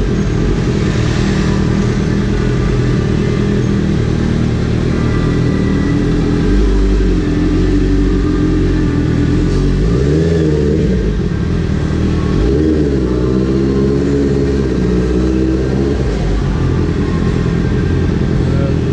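Motorcycle engine running at low speed, with its pitch rising and falling a few times in the second half as the throttle is opened and eased off.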